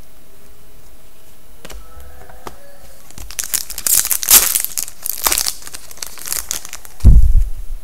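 Crinkling and tearing of a foil trading-card pack wrapper as cards are handled, lasting a few seconds, followed near the end by a short low thump.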